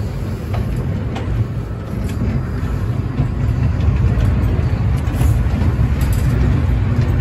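Small ride-on amusement train running along its track, a steady low rumble of the car in motion with a few faint clicks.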